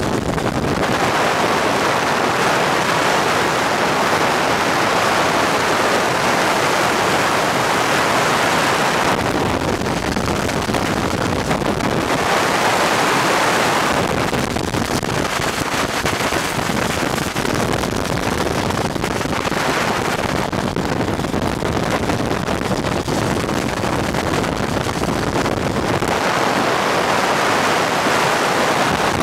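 Wind rushing over the microphone mixed with road noise at speed on a damp highway, a steady roar that swells and eases several times.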